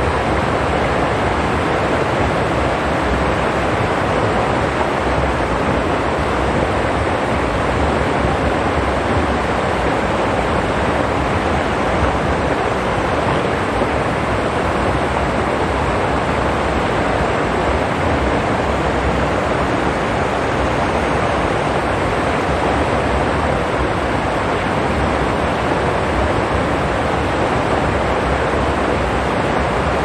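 Shallow mountain stream running over rocks: a steady, even rush of water that does not change.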